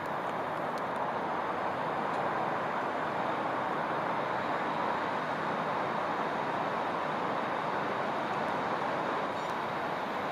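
Northern Class 769 bi-mode multiple unit approaching slowly, a steady running noise from the train.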